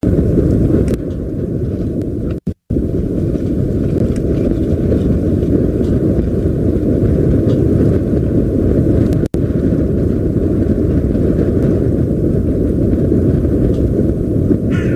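Steady low rumble of wind buffeting an outdoor microphone at an osprey nest, cutting out briefly twice. An osprey's alarm call starts right at the end.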